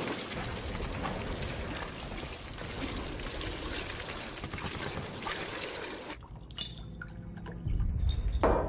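Petrol splashing and gurgling as it is poured from jerrycans onto blanket-wrapped bodies on the ground, for about six seconds. It then cuts to a quieter room with a low hum, a few small clicks and one sharp knock near the end.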